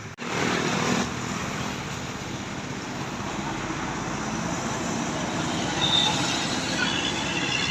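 Heavy road traffic, a bus passing close: steady engine and tyre noise, swelling in the first second and again around six seconds in, with a brief high squeak about six seconds in.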